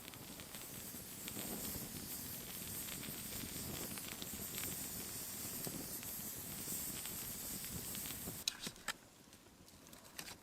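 Chilli sizzling and hissing in a pot over a campfire, cutting off suddenly about eight and a half seconds in, followed by a few sharp clicks.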